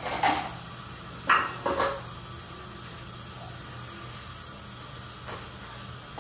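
Dishes clattering as they are handled at a sink and set into a dish rack: a few sharp knocks in the first two seconds, the loudest about a second in, and a faint one near the end, over a steady hiss.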